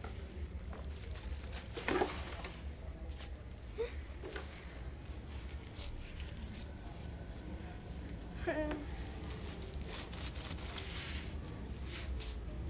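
Thin clear plastic bag rustling and crinkling as plastic cricket stumps are handled and pulled out of it, in irregular bursts with the loudest crackle about two seconds in.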